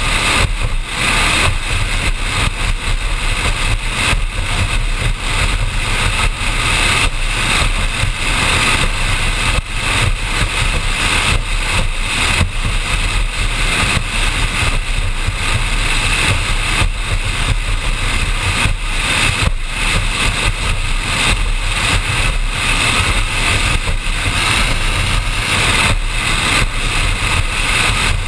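Offshore powerboat running at speed: a steady engine drone mixed with a low wind rumble on the bow-mounted microphone, broken by frequent short thumps as the hull crosses the chop.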